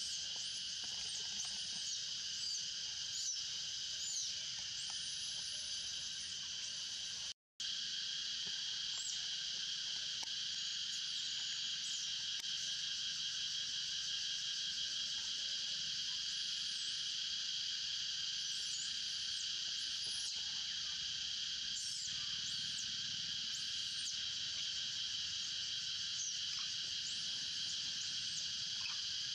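Steady chorus of insects, a high drone at several pitches at once, with short high chirps over it. The sound cuts out for a split second about seven seconds in.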